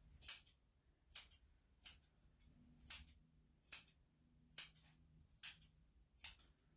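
Grooming scissors snipping as they trim the fur on a puppy's feet: eight crisp metallic snips at a steady pace, a little under one a second.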